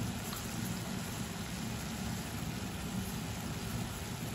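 A saucepan of tea water at a hard, rolling boil, giving a steady bubbling hiss with a low rumble underneath.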